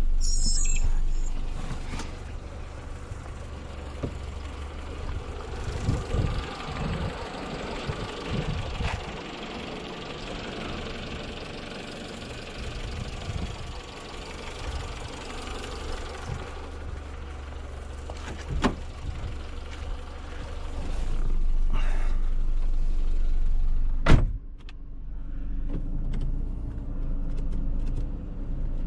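Car engine running low and steady, fading down after the first second and coming back for a few seconds near the end, with scattered clicks and knocks of handling in between and one sharp knock a little after the hum returns.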